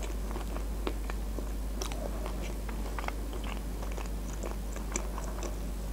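Close-miked biting and chewing of a KFC 'Bigger' chicken burger: a run of small, scattered wet mouth clicks and light crunches, over a steady low hum.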